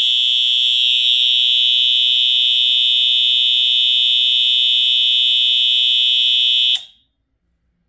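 Space Age A32-HA24D fire alarm horn strobe's electronic horn sounding one continuous, steady, high-pitched tone, which cuts off abruptly near the end.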